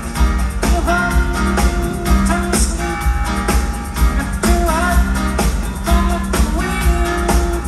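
Live rock band playing at full volume: electric guitars, keyboards and a drum kit over a steady beat.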